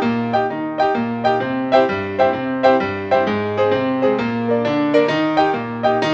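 Piano music: a simple melody of single notes struck at a steady pace, about two a second.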